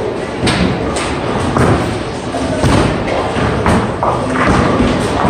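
Bowling alley noise: bowling balls and pins thudding and knocking on the lanes, half a dozen sharp knocks spread irregularly over the steady din of the hall.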